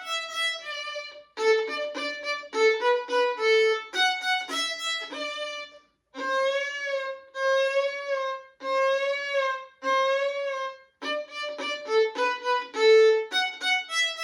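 Solo instrumental tune played as a single melody line: runs of short, quick detached notes, then a phrase of four long held notes with vibrato, then quick short notes again.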